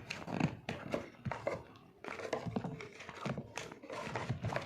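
Cardboard packaging of a boAt Airdopes 131 earbud box handled and rustled, with irregular clicks and scrapes as its contents are pulled out.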